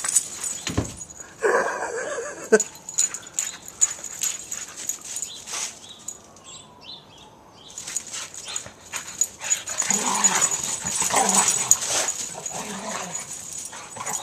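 Two boxer dogs play-fighting. They give short bursts of dog vocalizing, about a second and a half in and again from about ten seconds in, with their feet scuffling in snow.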